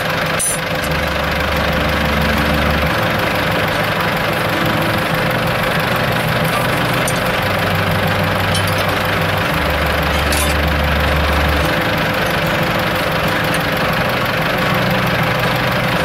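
Tractor engine running steadily, with low steady notes underneath that change every couple of seconds.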